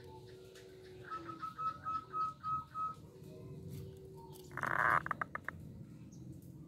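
Caged zebra dove calling: a quick, even run of about seven short high notes. A little before the end comes a short loud rustle with a few clicks, the loudest sound here.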